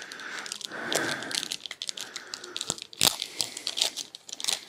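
Small clear plastic packaging bag crinkling and rustling as it is handled and opened, with irregular sharp crackles, the loudest about three seconds in.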